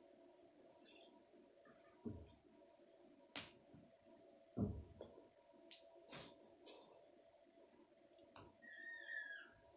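Scattered light clicks and a few soft knocks of plastic K'nex rods and connectors being handled and set down on a wooden table. A short, falling cat meow comes near the end.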